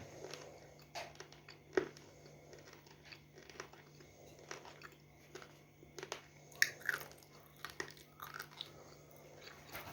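Close-up biting and crunchy chewing of a crumbly, slightly wetted substance that breaks into thin plates, in irregular crisp crunches, the sharpest about two seconds in and again past the middle, over a faint steady low hum.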